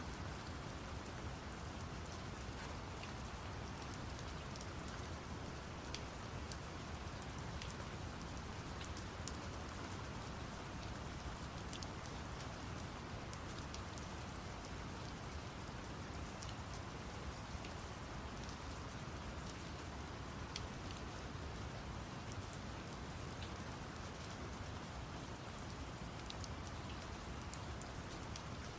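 Steady rain with many separate drops ticking, layered over a constant low brown-noise rumble.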